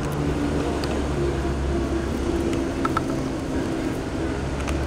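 Steady low engine or motor drone, holding an even pitch, with a few faint clicks about three seconds in.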